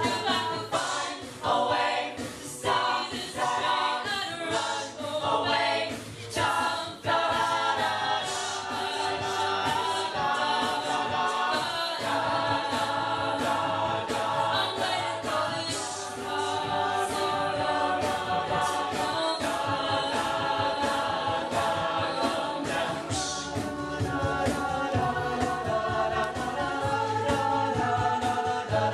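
A group of voices singing a song together in harmony, with sustained chords that shift from note to note.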